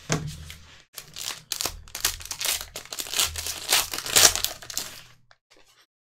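Foil trading-card pack wrapper crinkling and tearing as it is pulled open by hand, a dense run of crackles lasting about five seconds that stops abruptly, with a few faint rustles after.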